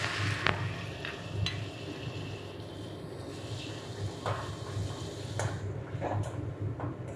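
Metal spatula scraping and tapping against a metal kadai, several separate clicks, as chopped tomato is stirred into frying onions. Under it is a hiss of hot oil sizzling, stronger in the first half, and a steady low hum.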